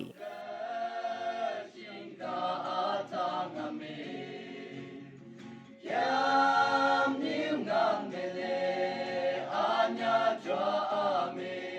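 Background music of wordless choral singing in long held notes, swelling louder about halfway through.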